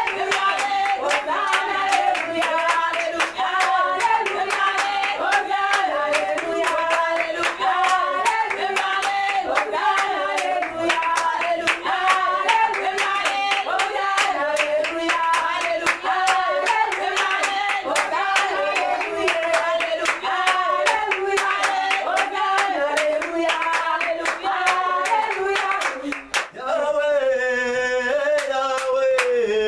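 Congregation clapping steadily in time with worship singing led by a woman's voice. Near the end the clapping breaks off briefly and a voice holds a long wavering note that falls in pitch.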